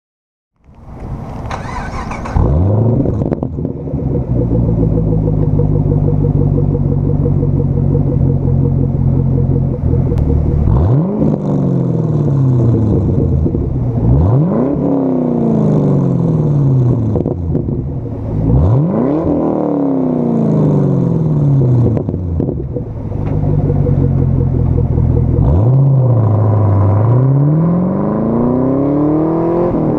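Chevrolet Camaro SS 6.2-litre V8 heard through a stainless axle-back exhaust with no mufflers: it fires up about a second in and settles into a steady idle. It is then revved sharply three times, each rev falling slowly back, and near the end the revs climb in a long rising pull as the car accelerates away.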